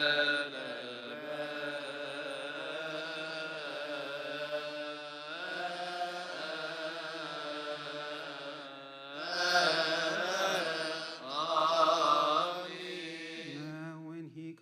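Coptic liturgical chant: a male voice singing long, wavering melismatic lines with no break. It swells louder about two thirds of the way through.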